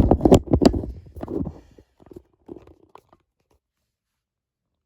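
Crunchy rustling and sharp clicks of plastic handled close to the microphone, dying away about two seconds in, with a few faint clicks after and then silence.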